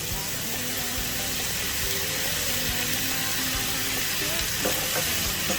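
Stir-fry sizzling in a hot pan as octopus is tossed with a freshly added sauce, a steady frying hiss with a few light knocks of the spatula near the end.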